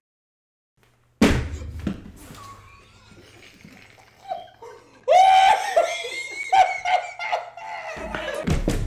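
Silent at first, then a short burst of noise about a second in; from about five seconds in, a group of people laughing.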